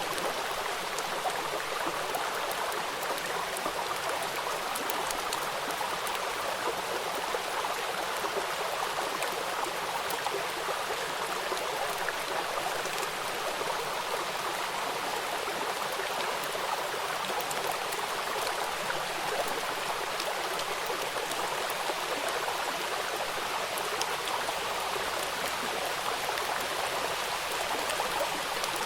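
Rain falling on a river: a steady wash of running water, with the fine, scattered patter of drops hitting the surface.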